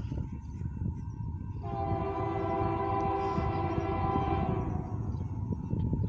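Locomotive air horn, a Nathan K3LA on a Union Pacific AC4400CW, sounding one long chord blast that starts about a second and a half in and fades out near five seconds, over a low rumble.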